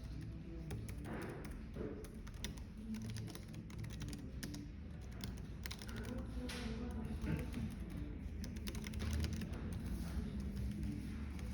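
Computer keyboard typing, irregular quick keystrokes, over a steady low café background murmur.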